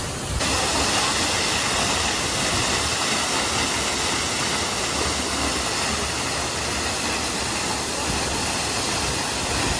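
Waterfall rushing, a steady dense hiss of falling water that jumps louder and brighter about half a second in.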